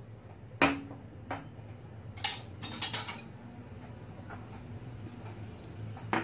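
A handful of short, sharp clinks and knocks of dishes and cutlery being handled: white ceramic bowls picked up and set down on a granite worktop. The first clink, about half a second in, is the loudest and rings briefly.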